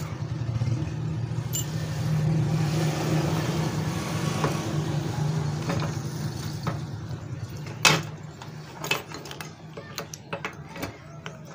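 A motor vehicle's engine running steadily, swelling a couple of seconds in and fading away past the middle. Then comes a series of light metal clicks and clinks, with one sharp knock about eight seconds in, as the Honda CD motorcycle's transmission gears and shafts are worked into the crankcase.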